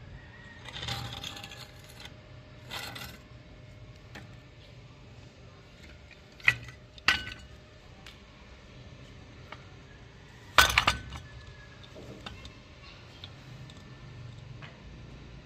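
A few sharp metallic clinks with light scraping between them: two clinks close together near the middle, then a louder clinking cluster about two-thirds through.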